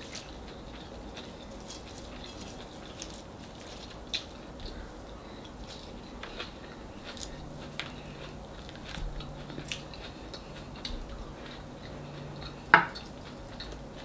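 Quiet eating sounds: faint, scattered clicks and crackles of bare fingers picking at a whole fried golden pompano on a platter, with chewing. One sharper, louder click comes near the end, and a faint low hum runs through the second half.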